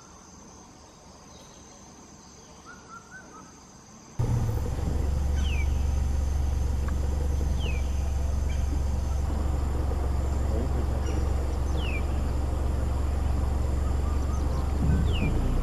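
A bird repeating a short, falling call about every two seconds. A steady low rumble starts abruptly about four seconds in and is the loudest sound.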